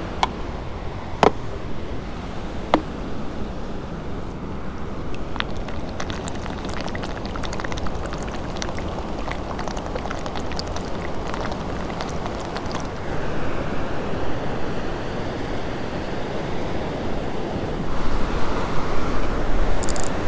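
Ocean surf washing onto a beach, with wind on the microphone, as a steady rushing noise that grows louder near the end. A few sharp clicks sound in the first three seconds.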